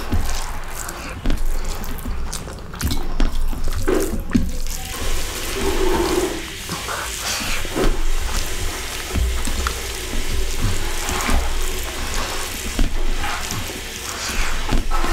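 Rice being mixed by hand with fish kulambu on a steel plate: wet, squishy, irregular noises of fingers working the rice and curry, with chewing of mouthfuls in between.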